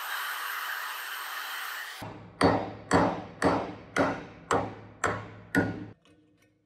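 A steady hiss for about two seconds, then seven sharp hammer blows, about two a second, each ringing briefly, on a rusted antique iron padlock body resting on an anvil.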